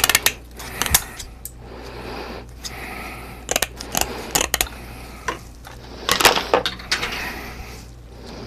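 Hands handling small hard objects: irregular clicks, taps and knocks in several short clusters, over a steady low hum.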